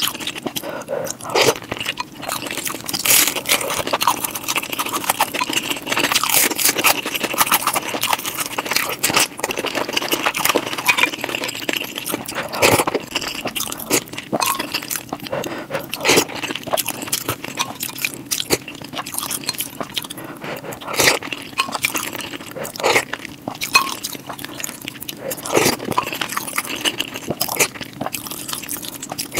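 Close-miked mukbang eating sounds: a person chewing and biting into Indian curry with rice, with many irregular wet mouth clicks and smacks.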